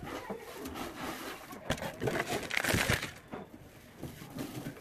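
Hands crumbling and squeezing wet red dirt in a basin of water: irregular gritty crunching and squishing, loudest about two to three seconds in.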